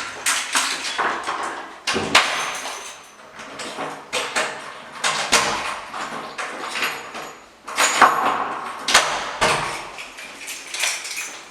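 A series of sharp knocks or strikes, irregular and roughly one a second.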